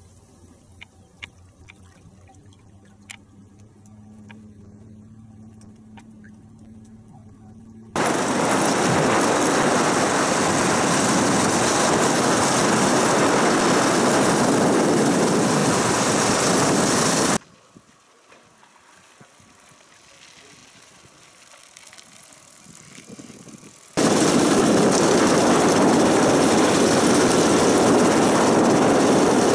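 Faint quiet with a few small clicks, then the loud, steady rush of a dirt bike ride, mostly wind on the microphone. It starts suddenly about eight seconds in, cuts off abruptly for several seconds, and comes back near the end.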